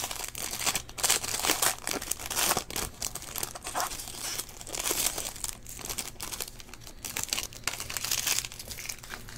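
Foil trading-card pack wrapper being torn open and crinkled by hand, a dense irregular crackling throughout.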